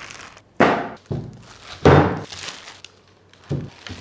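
Unboxing handling sounds: four dull thunks as packed soundbar components are handled and set down, the loudest about two seconds in, with plastic wrapping rustling between them.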